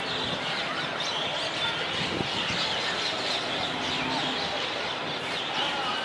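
A large flock of bank mynas calling together: a dense, steady chatter of many overlapping chirps.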